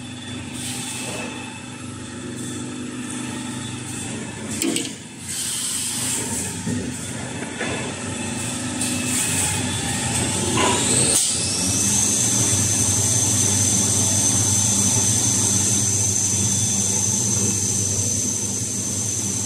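Kitchen towel production line machinery running with a steady mechanical hum, and some rustling and knocks in the first half. About eleven seconds in, a motor whine rises sharply in pitch and then holds as a steady high whine.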